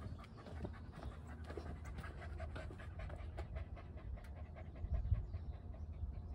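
Shiba Inu panting quickly and faintly, short breaths in an even rhythm.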